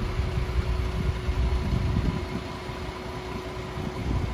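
Low, steady rumble of a coach bus's engine and road noise, with a thin steady hum above it.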